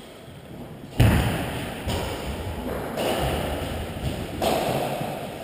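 Thuds and knocks of play on a badminton court, players' feet landing on the court floor and shuttlecock hits, starting with a loud sharp knock about a second in and going on as irregular low thumps.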